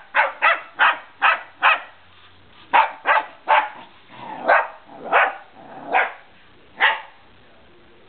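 Puppy barking repeatedly: a quick run of five sharp barks, then about eight more at a slower, uneven pace, stopping about seven seconds in.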